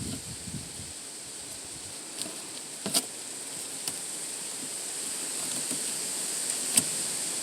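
Steady high-pitched insect hum, with two sharp clicks, one about three seconds in and one near the end.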